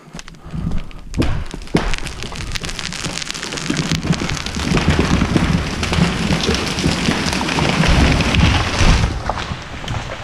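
Dead Douglas fir falling: a few sharp cracks of breaking wood in the first two seconds, then a long rising crackle and crash of snapping branches as it pushes through the neighbouring cedars. It is loudest with a heavy crash near the end as the trunk comes down, then dies away.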